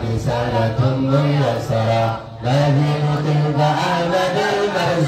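Male voice chanting verse in a slow, drawn-out melody through a microphone, with long held notes and a short breath pause about two seconds in.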